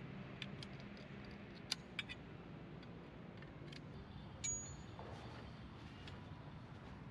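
Light metallic clinks of sectional metal tarp poles knocking together, several in the first four seconds, with a brief high ring about four and a half seconds in, over a low steady background hum.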